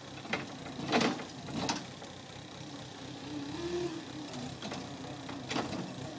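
Cat skid-steer loader's diesel engine running, its pitch rising and falling a little, with four short knocks, the loudest about a second in.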